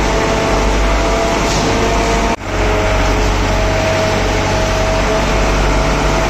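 Steady, loud machinery drone in a railway tunnel under construction: a low rumble with several held whining tones over it, broken by a brief drop about two seconds in.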